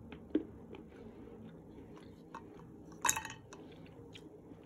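Quiet chewing of a piece of chocolate Easter egg shell, with a few faint crunching clicks and one sharper crack about three seconds in.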